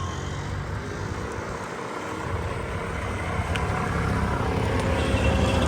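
Auto-rickshaw engine running with a low, steady rumble; the rumble dips briefly about two seconds in and then grows louder toward the end.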